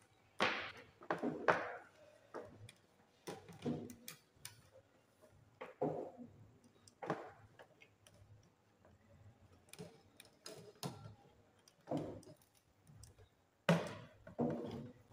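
Irregular clicks, taps and scuffs of insulated cables being handled and pushed into the terminal block of a single-phase energy meter by gloved hands, roughly one every second.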